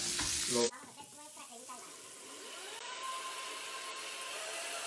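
Shrimp frying in butter and oil in a stainless steel skillet, a steady sizzle.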